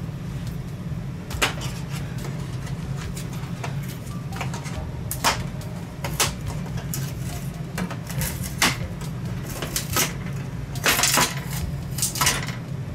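Irregular clicks, taps and light metallic clatter from LED backlight strips being handled and worked against a TV's sheet-metal backplate, over a steady low hum. The loudest cluster of knocks comes about eleven seconds in.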